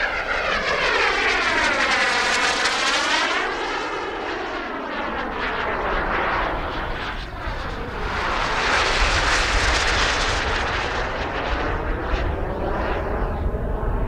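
Gas turbine of a CARF Models Mephisto RC sport jet in flight: a loud jet rush that swells, fades a little and swells again about two-thirds of the way through as the model passes by, its tone sweeping down and up with each pass.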